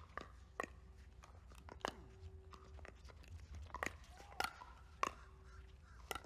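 Pickleball rally: sharp pops of paddles striking a hard plastic pickleball, about a dozen of them at an uneven pace, some in quick pairs.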